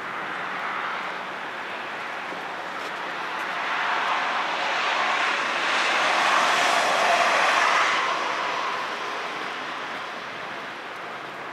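A vehicle passing by: a rushing noise that swells about four seconds in, is loudest around seven seconds and then fades away.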